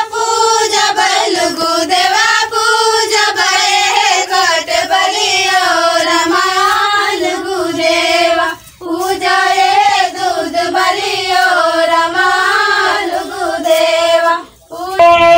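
Group of girls singing a Karam Puja folk song together in a high, even melody with no instruments, pausing briefly for breath about two-thirds of the way through and again near the end.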